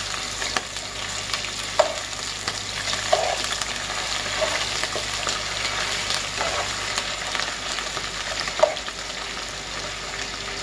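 Pork chorizo frying in very hot pork lard in a metal pot, a steady sizzle full of small crackles, while a metal spoon stirs it and knocks against the pot a few times, loudest near the end.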